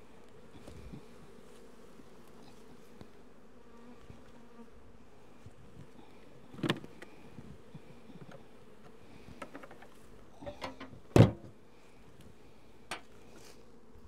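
Honey bees buzzing steadily around an open hive box. Two sharp knocks stand out, one about halfway through and a louder one near the end.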